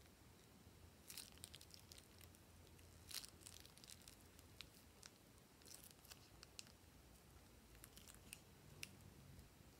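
Faint crinkling and crackling of a plastic piping bag being squeezed and wrung out to empty it, in a few short bursts about a second, three seconds, six seconds and eight seconds in.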